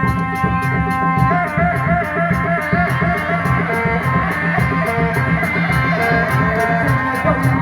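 Loud music with a steady drum beat, a wavering, sustained melody and a fast, even high-pitched metallic rhythm.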